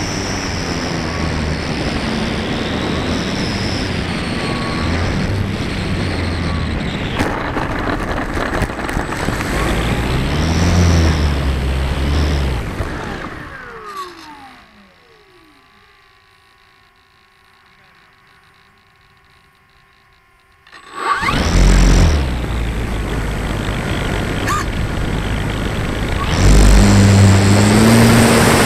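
Electric RC plane motor and propeller heard from the plane itself. Wind rushes past while the motor runs in flight, then the motor whine falls away as the plane lands and stops, leaving a few seconds of near quiet. About 21 seconds in the motor comes back suddenly under throttle for the roll across the grass, and it gets louder again near the end.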